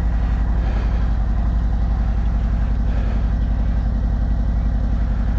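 Harley-Davidson Road Glide Special's Milwaukee-Eight V-twin engine running steadily with an even pulsing beat.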